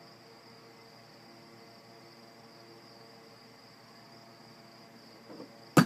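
Faint steady high-pitched whine of a quiet room; near the end, one loud sharp knock with a few small clicks around it as a cat paws at objects on a wooden dresser top.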